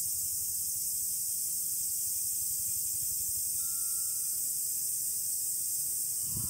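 Cicadas shrilling in a dense, steady chorus. A faint, brief tone sounds about halfway through.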